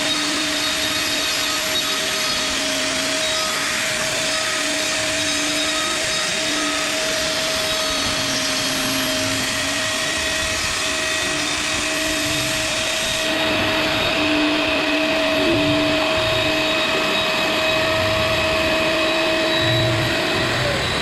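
An electric power tool working wood, running steadily with a constant whine. About 13 seconds in, the sound becomes duller, and the whine dips in pitch right at the end.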